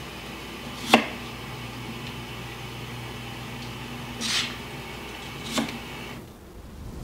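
Steady electrical hum of a kitchen's running appliances, with a sharp knock about a second in, a brief swish a little after four seconds and a click about a second later. About six seconds in, the hum cuts out as the house's power goes off.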